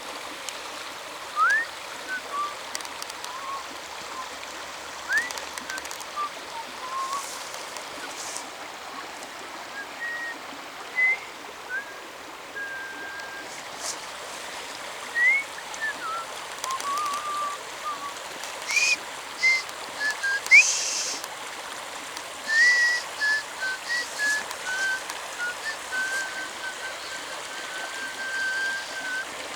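A person whistling a slow, made-up tune: short notes, quick upward slides and a few longer held notes, over a steady hiss. Brief sharp rustles come and go, most of them past the middle.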